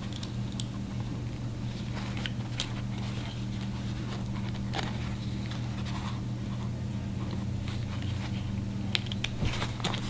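Needle-nose pliers crimping a metal top stop onto the tape of a jeans zipper: a few faint, scattered clicks and scrapes of metal on metal over a steady low hum.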